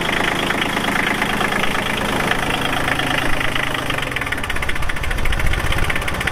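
Diesel engine of a Massey Ferguson 1240 compact tractor idling steadily; about four seconds in its note turns deeper and more evenly pulsing.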